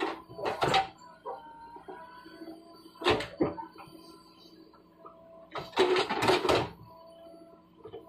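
JCB backhoe loader digging into a shale bank: the bucket teeth scrape and clank against the rock in sharp clattering bursts, about half a second in, about three seconds in and a longer run near six seconds in, over the steady hum of the diesel engine.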